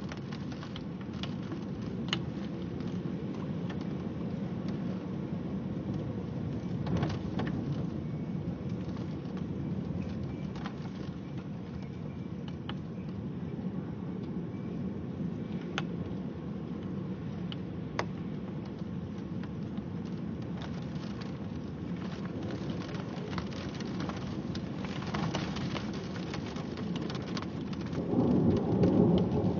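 Steady rain in a thunderstorm, with sharp drops hitting close by now and then. A low rumble of thunder swells near the end.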